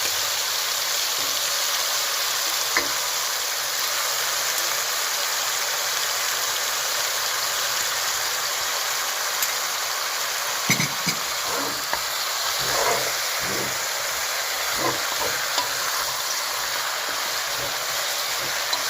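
Marinated mutton sizzling steadily as it fries in oil in a cooking pot. Now and then a utensil knocks and scrapes as the meat is stirred, mostly in the second half.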